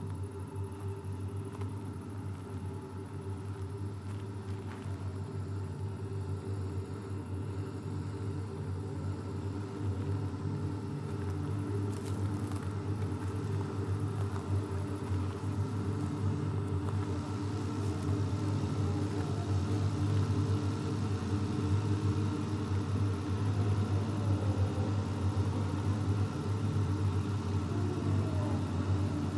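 A steady low hum with a faint hiss above it, slowly growing louder.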